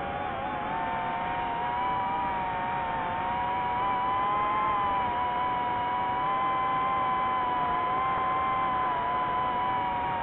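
DJI FPV drone's motors whining steadily, several close pitches held near one tone with slight rises and dips.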